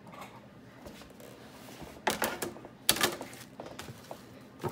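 A few sharp knocks and clicks of kitchen things being handled: one about two seconds in, a small cluster a second later, and another near the end, with quiet between.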